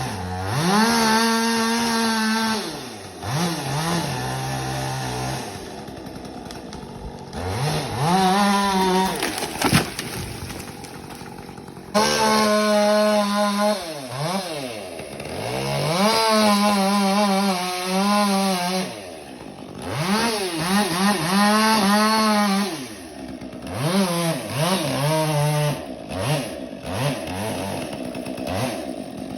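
Two-stroke chainsaw running in repeated swells, its pitch climbing high then sinking lower, with stretches at a lower, steadier speed as it works through wood. It comes in suddenly loud about twelve seconds in.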